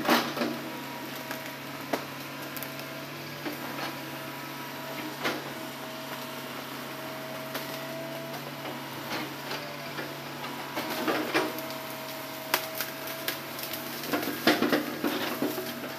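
Hitachi hydraulic excavator running steadily while it grabs and swings logs, with a higher whine that comes and goes. Sharp cracks and knocks of branches and logs snapping and shifting are scattered through, busiest in the last few seconds.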